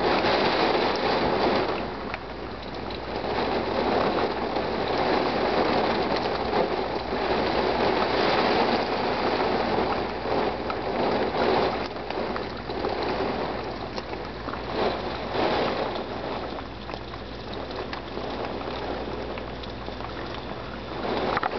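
Wind and rain storm: a steady rushing of heavy rain with gusts of wind that swell and ease every few seconds, easing off somewhat near the end.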